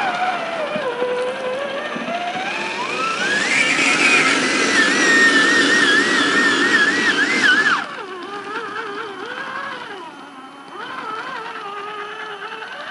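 Electric whine of a Traxxas TRX-4 scale crawler's brushless motor as the truck climbs a rock slab: the pitch rises steadily with speed, wavers as the throttle is worked near the top, then falls sharply about eight seconds in as the truck crests and slows.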